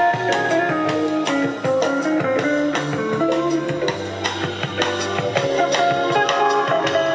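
Music with guitar and drums played back through a 1929 Victor amplifier with type 245 triode output tubes and a Victor BA-40 loudspeaker, heard in the room.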